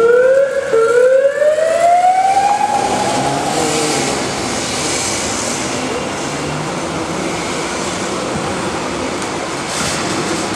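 Siren starting up: a short rising whoop that breaks off, then one long wail rising over about two seconds, which holds and fades out about four seconds in. A steady wash of street noise follows.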